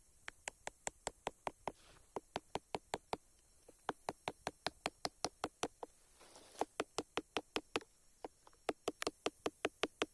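Rapid, evenly spaced knocking, about five or six sharp strikes a second in runs broken by short pauses.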